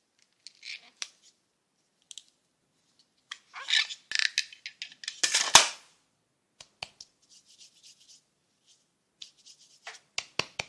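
Hands handling a glittery dough popsicle and a plastic popsicle mold: scraping and rubbing of dough on plastic with sharp plastic clicks. The sounds come in short bursts, loudest about four to six seconds in, with a few sharp clicks near the end.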